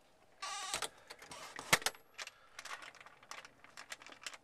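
A door being pushed shut: a short scrape about half a second in, a sharp click as it closes just under two seconds in, then small scattered clicks and rattles.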